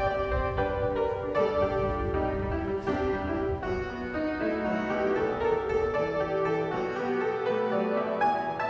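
Instrumental keyboard music, piano-like, a melody of struck notes over held chords.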